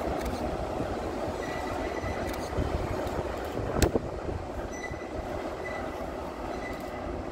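A train running along the track: a steady rumble with faint thin wheel squeal and one sharp click about halfway through.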